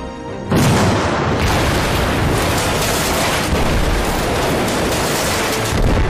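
A sudden, loud film explosion about half a second in, running on as a long rumbling blast, with a fresh surge near the end, over music. It is the sound of a ship being blown up at sea.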